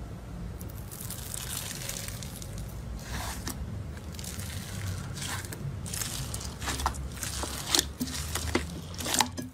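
Slime being squished and worked by hand: irregular wet crackles and pops over a low steady rumble, with a couple of sharper pops near the end.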